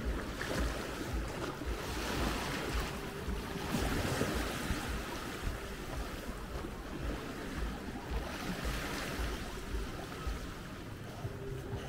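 Small sea waves washing onto the beach, the hiss swelling and falling back several times, with wind gusting on the microphone.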